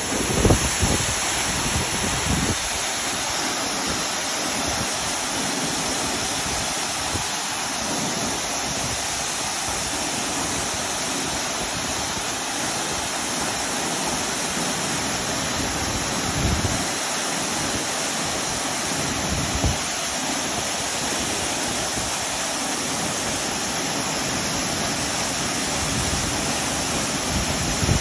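Multi-tiered mountain waterfall pouring into a rock pool: a steady, dense rush of falling water. A few short low thumps on the microphone come in the first couple of seconds and twice more about two-thirds of the way through.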